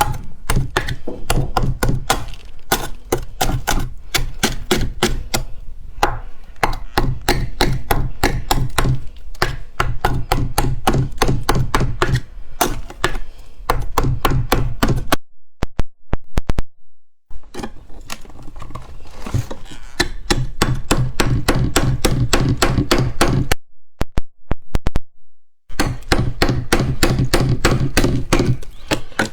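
Freshly formed frost crunching in quick, dense crackles, broken by two short near-silent pauses, one about halfway through and one a few seconds before the end.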